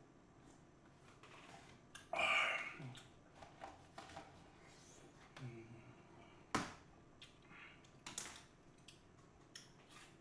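Quiet eating sounds from a plastic tub: a slurp about two seconds in, then scattered sharp clicks and taps of a plastic spoon and tub, with a short low hum from the eater midway.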